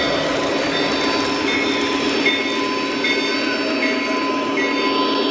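Lionel O-gauge model trains running past close by on three-rail track: a steady rumble of wheels on the rails with a constant motor whine, and short high squeaks that recur every second or so.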